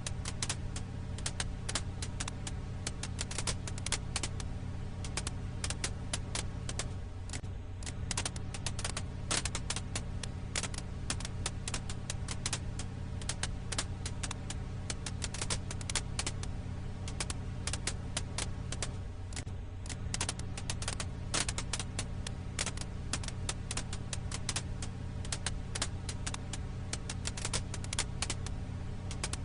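Firewood crackle ambience: dense, irregular pops and snaps of burning wood over a steady low hum.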